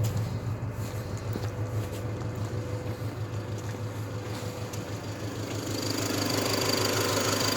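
Great Wall Hover H3 engine running with a pulsing knock, the knock the owner is recording it for. It gets louder about six seconds in.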